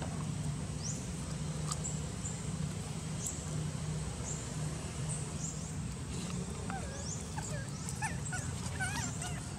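Infant macaque squeaking in short high rising-and-falling glides, several times in the last few seconds. Under it runs a steady low hum and short rising chirps that repeat about once a second.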